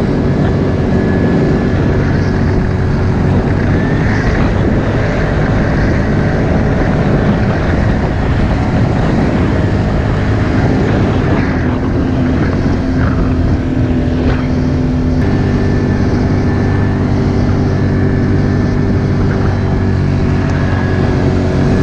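Off-road vehicle's engine running steadily under way up a dirt hill trail, its pitch shifting a little about halfway through as the throttle changes.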